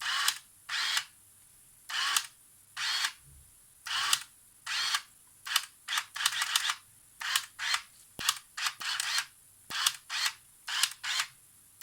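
Polaroid SLR 680's sonar autofocus ranging again and again as a hand moves in front of it: short chirping whirs from the sonar and lens-focusing mechanism, at an uneven pace of one to three a second.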